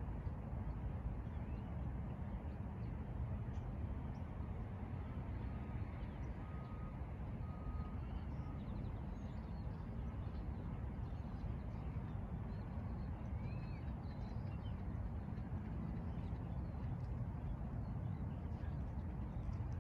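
Steady low background rumble with a few faint bird chirps scattered through it.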